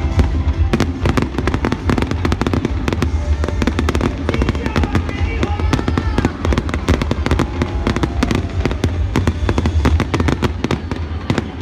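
Fireworks bursting in rapid, dense succession, a constant run of bangs and crackles, over loud music with a heavy bass.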